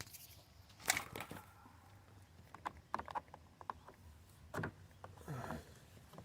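Plastic door-trim cover panel being pried loose by hand: scattered sharp clicks and snaps of plastic, a few at a time, about a second in, around three seconds in and again past four seconds.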